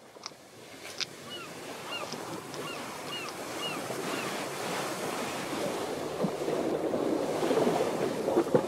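Sea surf washing over a rocky shoreline, swelling louder as the waves come in. In the first few seconds a bird gives a series of about six short, arched chirps, roughly one every half second.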